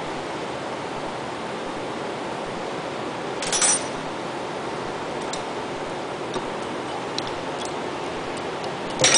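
Steady hiss of shop background noise, with a sharp metallic clink of a hand tool on metal about three and a half seconds in, a few faint ticks, and another clink near the end, as a wrench is put to the packing gland nuts on a pump's stuffing box.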